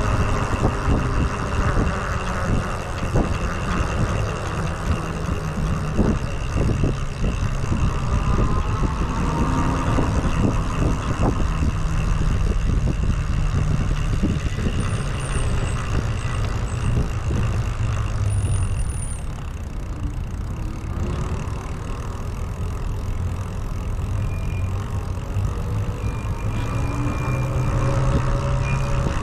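Traffic and road noise heard from a moving e-bike: a steady low rumble with cars passing and scattered knocks and rattles from the ride.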